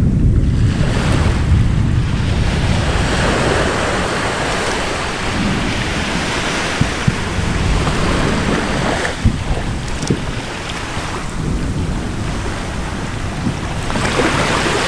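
Deep rumble of Anak Krakatau erupting, heard across the sea, with wind buffeting the microphone and surf underneath. A few sharp cracks stand out partway through.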